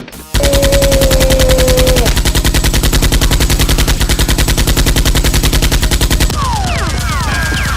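Machine-gun fire sound effect: a loud, rapid, even burst of about a dozen shots a second that runs for some six seconds and stops abruptly, followed by a run of short falling whistles.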